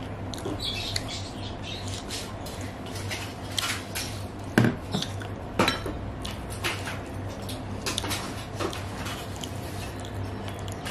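Fingers mixing rice with egg posto (boiled egg in poppy-seed paste) on a plate. Scattered light clicks and taps sound against the dishes, with a few louder knocks around the middle, over a low steady hum.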